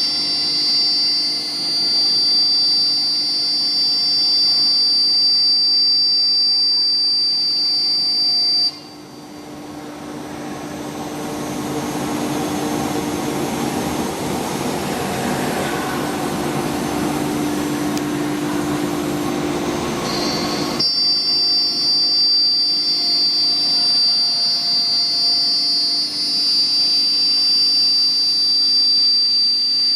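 BMG 1325 CNC router running, with a steady high whine. About nine seconds in the whine cuts off suddenly and a noisier machine sound with a low hum builds up in its place, until the whine comes back suddenly near two-thirds of the way through.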